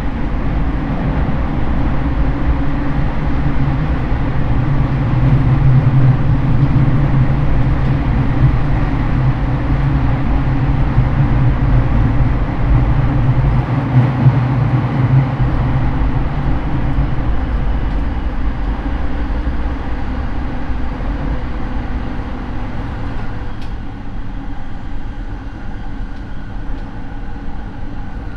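Rinkai Line 70-000 series electric train running along the line, heard from inside the car: a steady, loud rumble of wheels and running gear on the rails. It grows quieter over the last few seconds.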